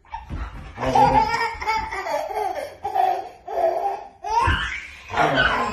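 Laughter in several short bouts, with a baby's laughter among it.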